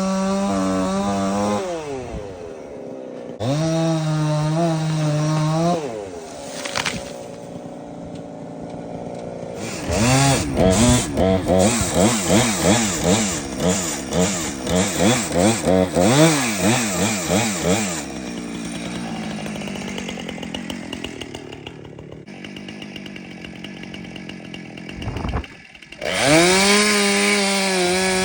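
Chainsaw running at full throttle while working the back cut on a tree being felled. It eases off and revs back up twice at first, then throttles up and down rapidly for several seconds, runs slower for a while, and near the end is revved back up to a high, steady pitch.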